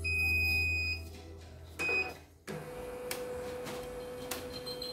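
Computerized embroidery machine powering up: a high beep lasting about a second, a second short beep, then a steady motor whir with a few clicks as the embroidery unit drives its arm to the starting position.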